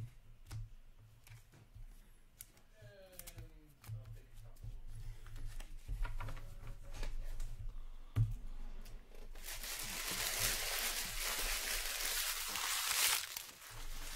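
Light clicks and taps of trading cards being handled and squared into a stack. Then, about nine seconds in, a loud rustling, tearing noise of a few seconds as a card pack wrapper is torn open.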